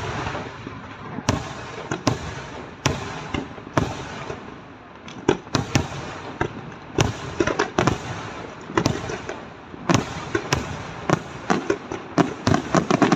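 Aerial firework shells bursting overhead in an irregular series of sharp bangs, with noise filling the gaps between them. The bangs come in a rapid run near the end.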